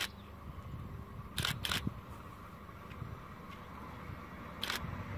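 Siemens Vectron electric locomotive approaching: a low rumble that builds toward the end, with sharp clicks of its wheels over rail joints, two close together about a second and a half in and another near the end.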